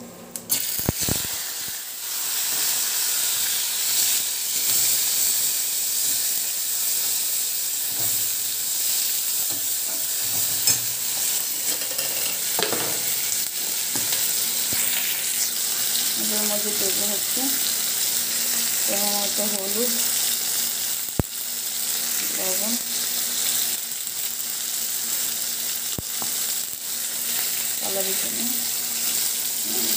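Hot oil sizzling steadily in a steel kadai, starting about a second in, as ginger paste, tomato chunks and green chillies are fried for a ghugni masala. A flat steel spatula scrapes and taps against the pan now and then as the mixture is stirred.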